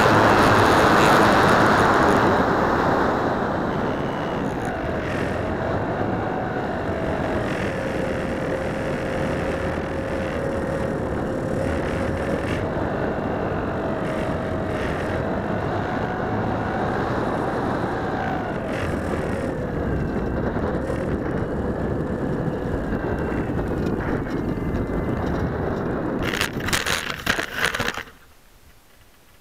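Onboard sound of a Phoenix 2000 RC electric motor glider in flight: rushing air with a motor whine that wavers in pitch, loudest in the first few seconds. Near the end comes a quick run of crackles and knocks as the glider comes down into snow and dry weeds, after which the sound drops away.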